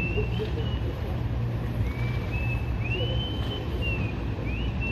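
An engine running at a steady low hum, with thin high whistling tones that slide up, hold briefly and fall away several times over it.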